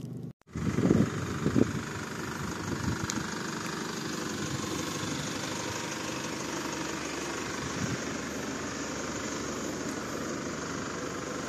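Vehicle engine idling steadily, with a few low knocks about a second in.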